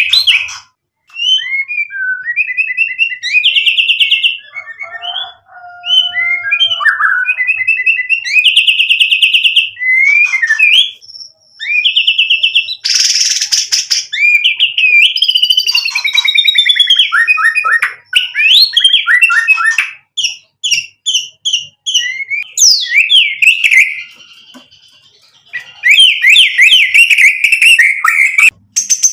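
Male white-rumped shama (murai batu) singing a long, varied song: loud whistled phrases, trills and fast runs of repeated notes that jump in pitch, with a short harsh rasping burst about halfway through.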